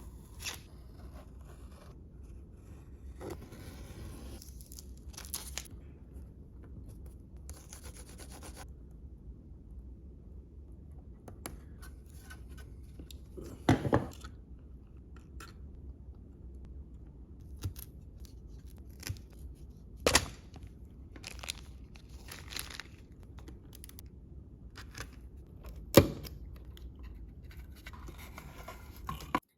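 Low steady hum with faint rubbing and handling noises, broken by a few sharp knocks spread several seconds apart.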